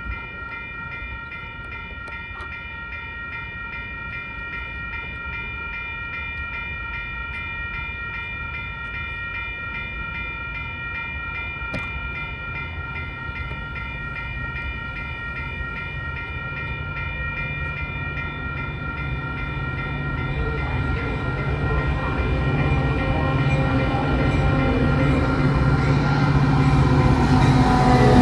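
Grade-crossing warning bells ringing steadily with a metallic ring. They fade under the rising rumble of an approaching Metra diesel locomotive and its bi-level commuter cars, which grows loudest near the end as the train draws alongside.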